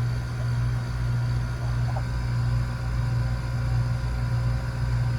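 Air-conditioning outdoor unit running: a steady low hum from the compressor and condenser fan.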